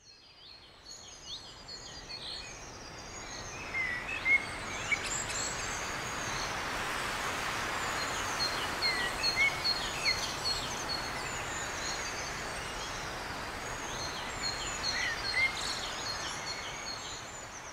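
Many small birds chirping and trilling over a steady outdoor hiss, all fading in from silence over the first few seconds.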